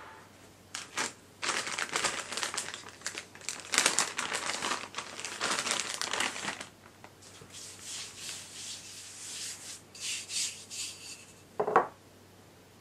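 Paper flour bag crinkling and rustling in bursts as it is handled and flour is shaken out onto a silicone baking mat, then softer rustling and a single short knock near the end.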